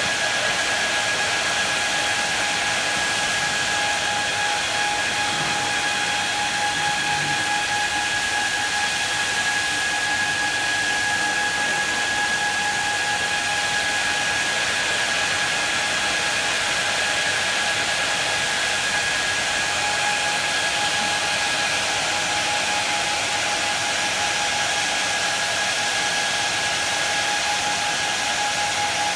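Two electric blowers running steadily, forcing air into an inflatable rescue air cushion: a constant rush of air with a steady whine on top.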